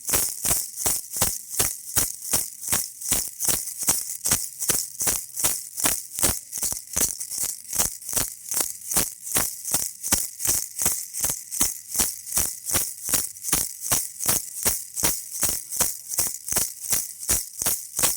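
Baby rattle shaken steadily, about three shakes a second, each shake a bright, high rattle.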